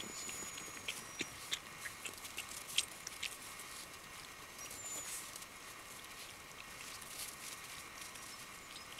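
Alaskan Malamute puppies scuffling and nosing in trampled snow: faint scattered clicks and crunches, thickest over the first few seconds and loudest about three seconds in, with a couple of faint high squeaks.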